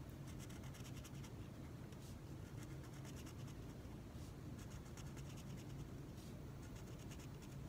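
Orange felt-tip marker scratching across paper in many short back-and-forth strokes as it colours in, faint, over a low steady hum.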